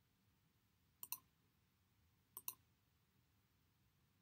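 Two faint computer mouse clicks, each a quick double tick of button press and release. The first comes about a second in and the second just over a second later, against near silence.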